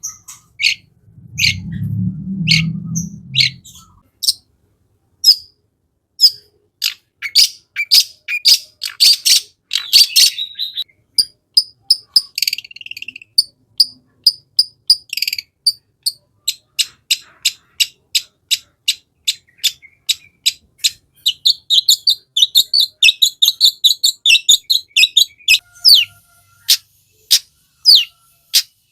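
Long-tailed shrike singing a fast, steady string of short, sharp high chirps, with a denser chattering run of mixed phrases towards the end. A low rumble lasts about two seconds near the start.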